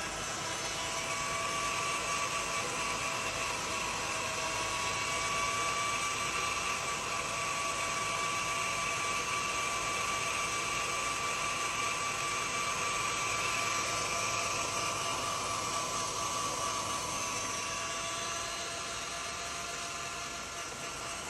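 Whine from inside the 2019 Toyota Sienna's UA80 eight-speed automatic transmission: a steady high tone over running noise, strengthening about a second in and easing slightly near the end. On teardown the mechanic finds a loose nut, wear in the washers between the planetary pinions and a faulty torque converter, which he calls common problems in this transmission.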